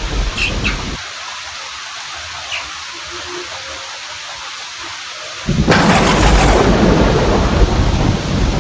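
Steady rain with a thunderstorm. Thunder rumbles at first and fades out about a second in, leaving only the hiss of rain. About five and a half seconds in, a sudden loud thunderclap breaks in and rolls on as a heavy rumble.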